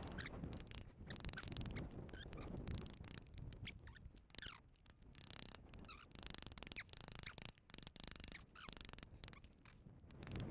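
Small metal clicks and scrapes of hand tools and a wire working at a stuck pin, short and irregular.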